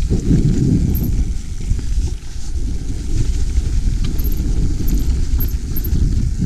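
Mountain bike being ridden on a trail: a steady, heavy rumble of wind on the camera microphone and tyres over the ground, with light clicks and rattles from the bike.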